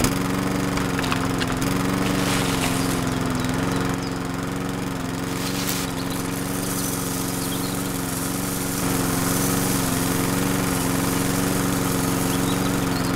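Small motor driving a miniature sunflower threshing drum, running steadily with an even hum, a little quieter for a few seconds in the middle.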